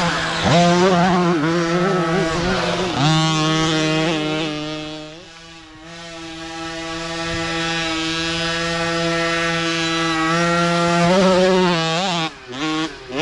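Mini dirt bike engines revving: a bike accelerates past with the pitch rising and falling through the gears, a steadier engine drone follows in the middle, and another small bike revs up near the end, briefly cutting out just before the end.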